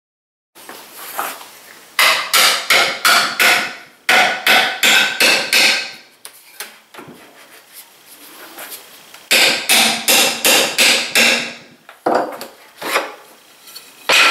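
Hammer tapping thin wooden wedges into the gap between a workbench top and its leg to break the long-joined top loose from the leg tenons. The blows come in several quick runs, about four a second, with short pauses between.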